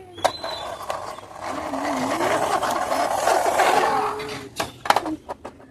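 A child imitating a vehicle engine with a buzzing, wavering vocal 'brrr' for a few seconds, with sharp plastic clicks from the toy bus being handled before and after it.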